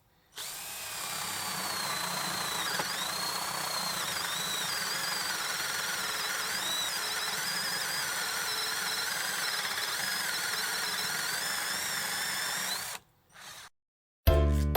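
A 12V cordless drill driver motor runs steadily for about twelve seconds with a high whine that wavers slightly in pitch, then stops. It gives one more short burst just before music comes in at the very end.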